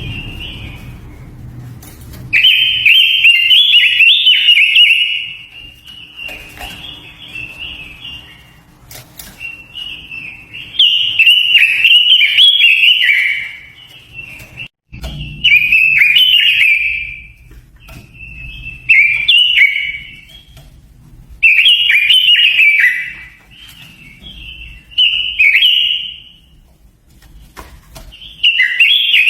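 Quế lâm songbird singing: loud, varied whistled phrases of one to three seconds each, broken by short pauses, about eight phrases in all. This is the song used as a lure recording to call in and train other quế lâm.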